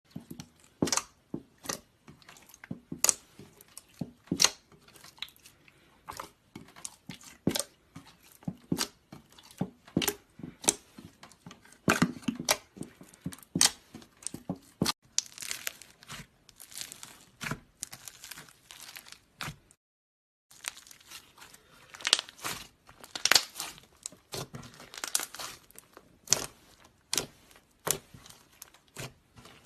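Slime being squeezed, poked and stretched by hand: irregular sharp pops and crackles, about two or three a second, with softer crinkly stretching sounds between. The sound cuts out briefly about two-thirds of the way through, then goes on the same way.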